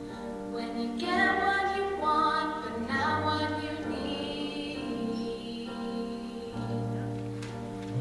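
High school show choir singing in harmony, holding chords that change every second or so.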